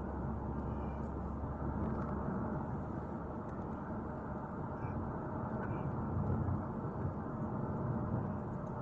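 Steady road and engine noise of a moving car, heard inside the cabin from the back seat: an even low rumble and hiss.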